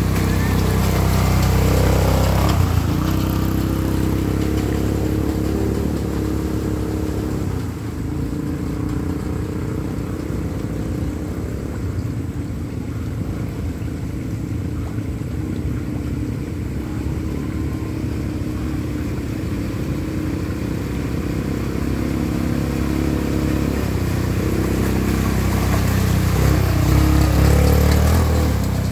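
ATV (quad bike) engines running and revving as the quads drive through a shallow stream; the engine is loudest in the first couple of seconds and again near the end, as a quad passes close.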